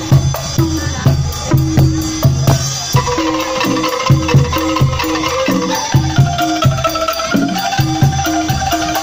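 Angklung ensemble playing: shaken bamboo angklung sounding short repeated notes in a steady rhythm over deep repeated beats. A higher held melody line comes in about three seconds in.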